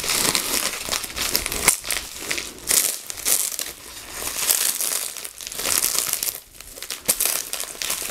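Plastic bubble wrap crinkling and rustling as it is handled and unwrapped, in irregular crackly bursts with short lulls between them.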